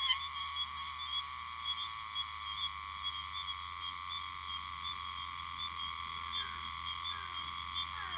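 Oshima cicada (Meimuna oshimensis) singing: pulsing notes in the first second merge into one continuous, high, machine-like buzz.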